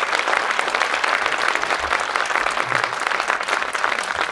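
An audience applauding: many hands clapping at once.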